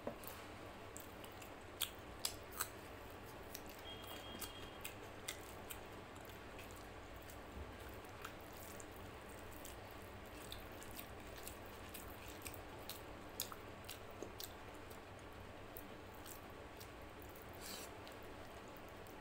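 Eating rice and mutton curry by hand: fingers mixing and squishing rice on a plate, with chewing and scattered sharp wet clicks. A faint steady hiss lies underneath.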